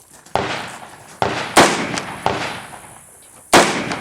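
Rifle shots during a practical rifle match course of fire: five loud reports at uneven intervals, each trailing off in an echo, two of them close together about a second and a half in.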